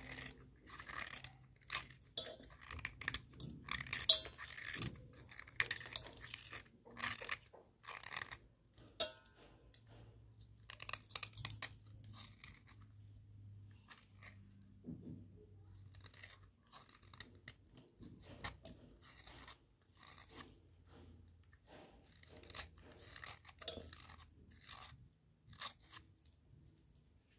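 A wet, square-section slate pencil being snapped and crumbled by hand: a rapid run of dry crunches and small snaps, densest in the first half and sparser later, with one loud snap about four seconds in.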